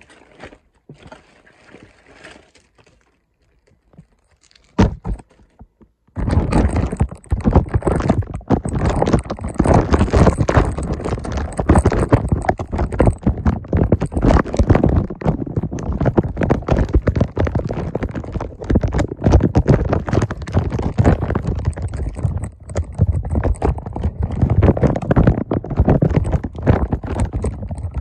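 Quiet rustling, one sharp knock, then from about six seconds in a loud, dense run of clattering knocks and scrapes close to the microphone.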